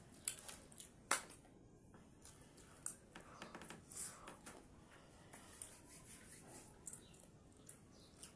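Scattered soft clicks and rustles of folded paper slips being unfolded and handled, with light clinks of a metal spoon against a plate, the sharpest about a second in.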